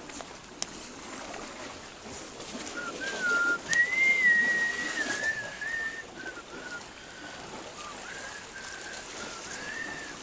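A person whistling a slow, wavering tune, starting about three seconds in, with a long held note near the middle and short phrases after it, over a steady background hiss. A brief louder rustle and a sharp click come around four seconds in.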